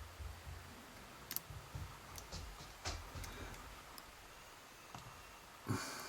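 Small scattered clicks and ticks of a lock pick working the pin stack inside an ABUS 90/50 padlock cylinder under tension, with a louder knock about three-quarters of a second before the end.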